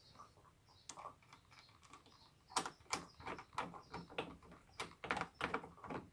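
A run of small, quick clicks and taps from hands working metal door-lock parts, a retaining screw and screwdriver, during the change of a uPVC door's cylinder lock. A few clicks come first, then the tapping grows dense about two and a half seconds in.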